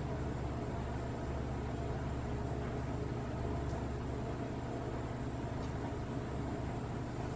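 A steady low machine hum with hiss, with two very faint ticks in the middle.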